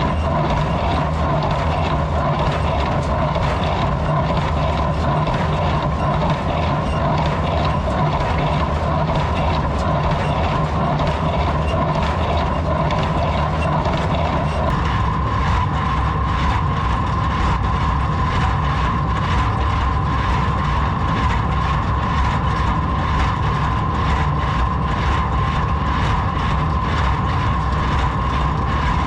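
Ford 3000 three-cylinder tractor running steadily under load while pulling a New Holland 273 square baler, with a regular clacking from the baler's machinery. About halfway through, part of the sound drops away while the engine runs on.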